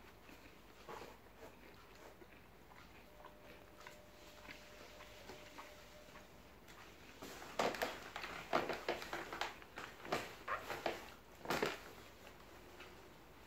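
Sounds of a meal close to the microphone: chewing and roti being torn by hand. Quiet at first, then a run of short crackly clicks and rustles from about halfway through.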